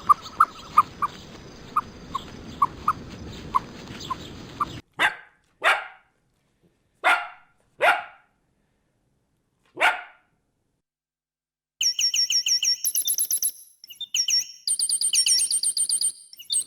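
The clip opens with a string of short squeaks over a steady hiss. A dog then barks five times, the barks about a second apart. Near the end comes rapid, high-pitched chirping in quick runs.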